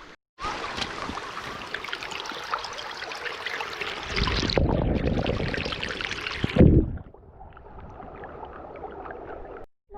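Rustling and crackling of footsteps through dry leaves, louder from about four seconds in, with one heavy thump near seven seconds.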